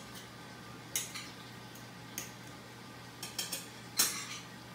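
Metal knife and fork scraping and clinking against a plate while cutting cooked pork steak: a few short, separate scrapes and clicks, the loudest about four seconds in.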